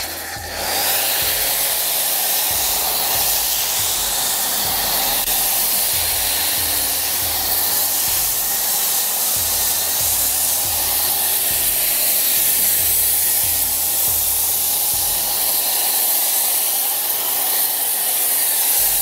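Snow foam lance on a Kranzle Therm CA11/130 hot pressure washer, running at full pressure, spraying foam in a loud, steady hiss that starts about half a second in.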